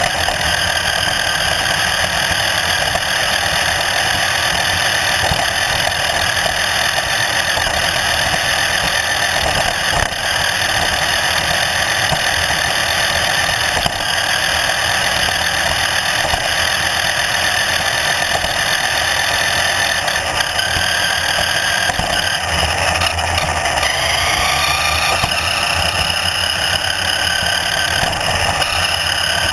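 An engine running steadily, with a whine that rises in pitch about three-quarters of the way through.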